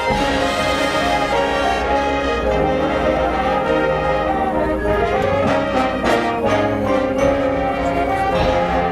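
Marching band brass section playing sustained chords, trumpets and trombones over low brass, with the harmony shifting every second or two.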